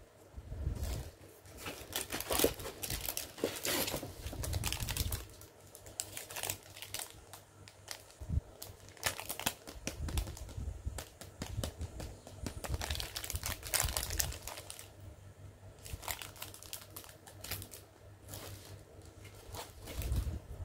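Clear plastic packaging crinkling in irregular bursts as hands handle and turn a wrapped toy, with soft low bumps of things being set on the table.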